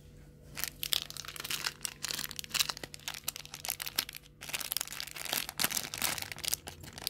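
Clear plastic packaging bag of a miniature cup noodle keychain crinkling as it is handled: a quick run of crackles, with a short break about four seconds in.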